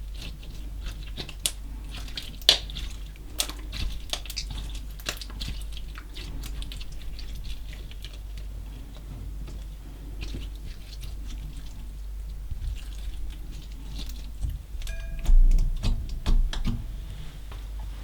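Slime mixed with small coloured particles being worked by hand: sticky squishing with many small clicks and crackles. A few louder dull knocks come near the end, one with a short squeak.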